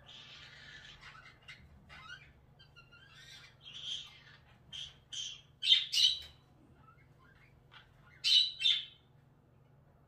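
Conure squawking: a string of short, harsh calls, the loudest coming in two pairs about six and eight and a half seconds in.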